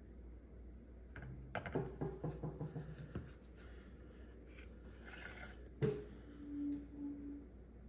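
Small handling noises from a thermal paste syringe and the plastic ABS module on a stone countertop: a quick run of light clicks and scrapes, then one sharp click about six seconds in.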